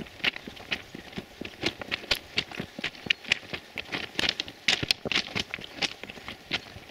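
Footsteps crunching on the crushed-stone ballast of a railway track, a person walking at a steady pace.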